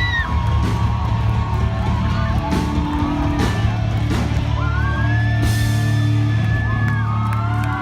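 Live rock band playing: a heavy, sustained bass and electric guitar with drum hits, and a cymbal crash about five and a half seconds in.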